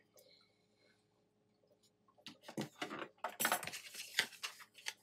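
Small metal pieces being handled on a workbench: a quiet start, then from about two seconds in a quick run of clicks and clinks with a short scrape, as the stamped fork pendant and tools are picked up and moved.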